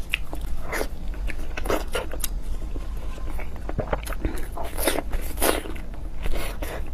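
Close-miked eating: a person biting and chewing pieces of braised food, in irregular short bursts of mouth noise, thickest around five seconds in, over a steady low hum.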